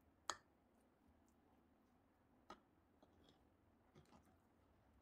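A few faint clicks of a metal fork against a wooden cutting board as it scrapes charred skin off a roasted eggplant; the sharpest comes just after the start and another about two and a half seconds in.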